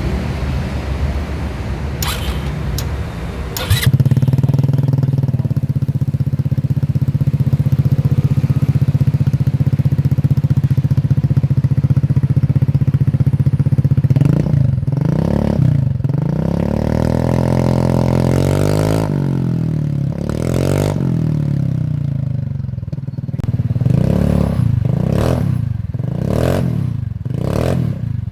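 Rusi RFI 175 scooter engine running through an aftermarket exhaust muffler. It ticks over steadily with a few sharp clicks, runs a little louder from about four seconds in, then is revved in a string of throttle blips from about halfway, each rising and falling back, coming quicker near the end.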